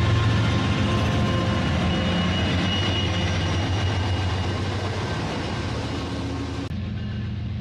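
Steady low rumble of a train engine, slowly fading. Its higher hiss drops out suddenly near the end.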